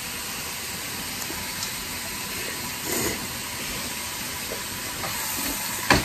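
Steady hiss with a few faint ticks and a soft clatter about three seconds in.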